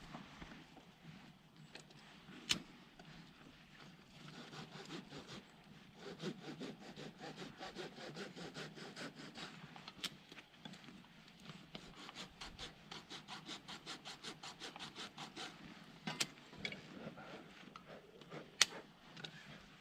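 Rapid, even cutting or rubbing strokes, about five a second, running for roughly ten seconds, with a few sharp knocks before and after.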